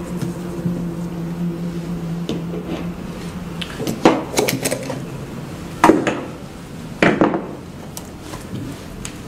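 A low steady hum that stops a little before the middle, then sharp knocks and clatter of tools and parts being handled on a workbench: a quick cluster about four seconds in, and two louder single knocks about six and seven seconds in.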